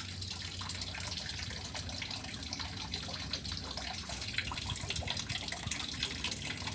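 Water running and splashing steadily into a garden fish pond.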